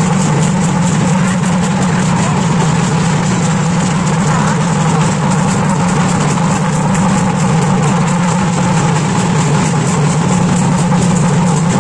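Loud, dense din of a packed festival crowd, with a fast, steady beat of regular strokes running through it without a break.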